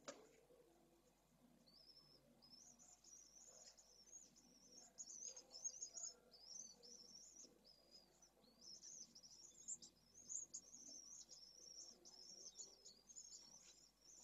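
Pale swifts at the nest, a short knock right at the start, then from about two seconds in a continuous high, rapidly warbling twittering chatter.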